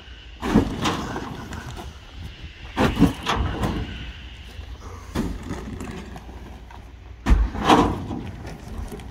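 A few loud thumps and rustling crashes a couple of seconds apart as plastic sacks of wood chips are handled and emptied into a metal skip from a forklift pallet, over the forklift's engine running with a steady low hum.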